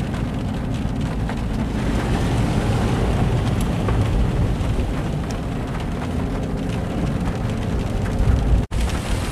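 Rain falling on a car's roof and windows over the steady low rumble of the car driving on a wet road. The sound drops out for an instant near the end.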